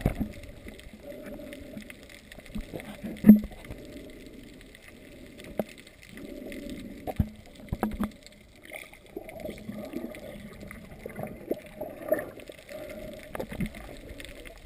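Muffled underwater sound picked up by a GoPro in its waterproof housing: a dull, shifting wash of water movement with scattered sharp clicks and knocks, one louder knock about three seconds in.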